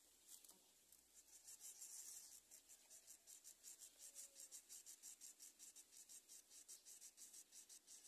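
Greater coucal nestlings begging while being fed: a faint, fast, raspy high-pitched rasping, about five pulses a second, starting about a second in.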